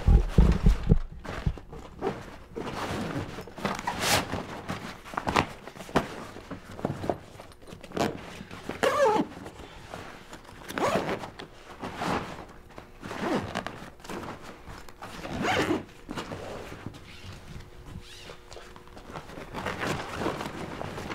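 Zipper of a large fabric kayak travel bag being pulled closed in a series of strokes, with fabric rustling as the bag is handled. Heavy handling thumps sound right at the start.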